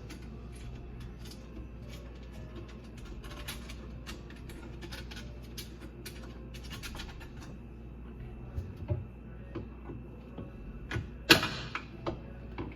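Small clicks, scrapes and knocks of aquarium gravel and tools being worked out of a clogged garbage disposal, with one sharp, loud clatter about eleven seconds in, over a steady low hum.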